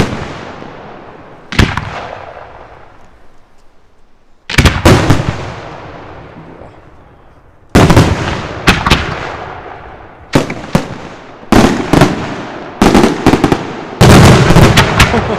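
Large aerial firework shells bursting overhead: a string of about a dozen sharp booms, each trailing off in a long rolling echo. They come a few seconds apart at first, then faster, with the loudest, densest run of bursts near the end.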